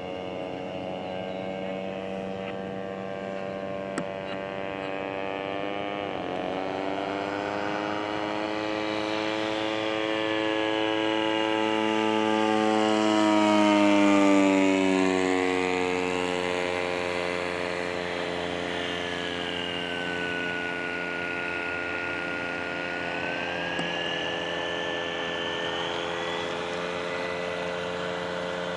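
Radio-controlled model airplane in flight, its motor and propeller droning steadily. The pitch dips briefly about six seconds in, bends and swells to its loudest about halfway through as the plane flies past, then settles fainter. A second, higher whine glides down and back up in the later part.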